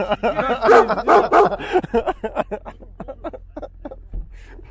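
Several men laughing loudly, fading into quieter short chuckles after about two seconds.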